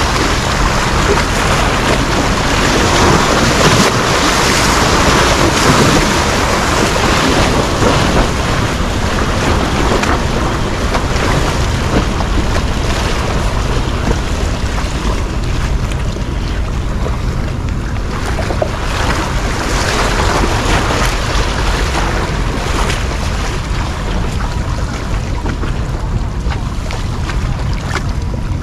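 Wind rushing on the microphone over open water, mixed with the wash of water, a steady loud rush that is strongest in the first several seconds and eases a little after.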